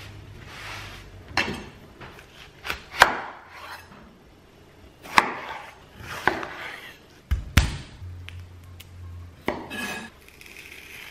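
Kitchen knife cutting on a wooden cutting board: about eight separate knocks and chops with uneven pauses, as watermelon and garlic cloves are cut.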